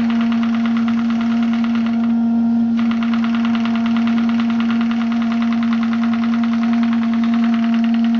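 Graupner 5000 twin-cylinder model steam engine running fast, a rapid even patter of exhaust beats over a steady hum, as its cylinders clear of condensate and it picks up speed. The beats fade briefly about two seconds in, then carry on.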